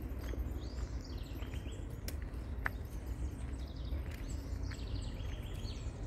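Small birds chirping in the surrounding trees, with several quick runs of high, falling chirps, over a low steady rumble. A single sharp click about two and a half seconds in.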